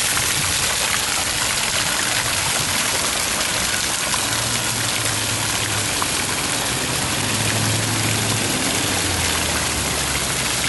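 Fountain water jets splashing steadily into a stone basin. A low hum comes in about four seconds in and fades near the end.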